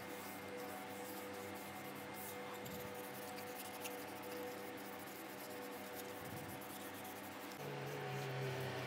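Soft, scratchy rubbing of a small hand-held pad over the wood of a turned wooden cup, with faint steady tones underneath.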